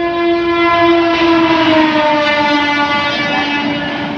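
Locomotive horn held in one long continuous blast, its pitch sinking slowly, over the rumble of a train on the track.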